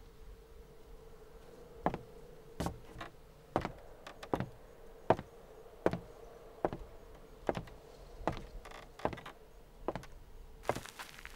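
Slow, evenly spaced knocks, about one every 0.8 seconds, starting about two seconds in, over a faint steady hum.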